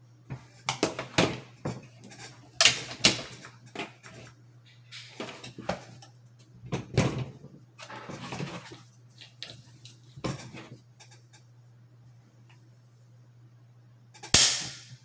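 Bursts of sharp metallic clicks and clacks from a Daniel Defense Delta 5 bolt-action rifle: the bolt and trigger are worked while the trigger pull is measured with a trigger-pull gauge. The loudest, a single sharp snap, comes near the end.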